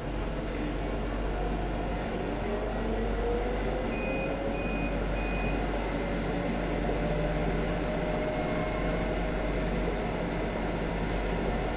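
Interior running noise of an Alstom Citadis 302 tram: a steady rumble and hum, with an electric motor whine that rises in pitch over the first several seconds and then holds, as the tram gathers speed. Three short high beeps sound about four to five and a half seconds in.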